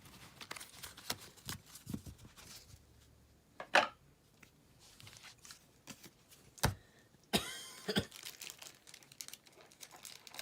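Plastic wrapping and Pokémon trading cards being handled: soft rustling and crinkling with scattered light clicks and taps. A sharper crinkle comes about four seconds in and a longer one a little after seven seconds.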